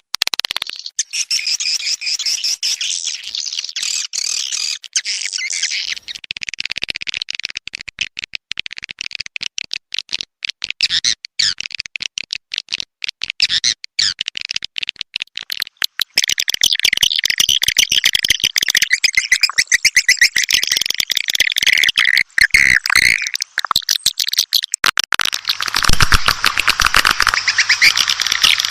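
Swiftlets chirping and twittering in a dense, rapid chorus, getting louder about halfway through: a swiftlet lure-call recording of the kind played to draw birds into a nesting house.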